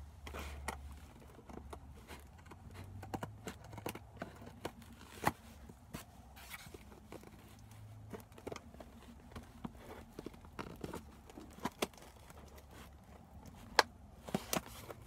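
Cardboard shipping box being cut and pried open with scissors and hands: scattered snips, taps and scrapes, with cardboard and tape tearing, and one sharper click near the end.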